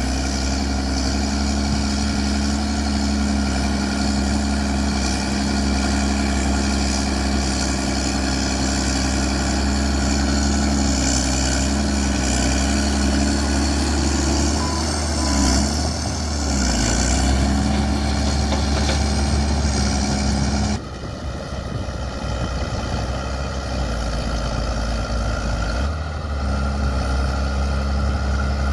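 Bulldozer's diesel engine running steadily, with a brief dip and recovery in engine pitch midway. The engine sound drops suddenly in loudness about two-thirds through and builds back near the end.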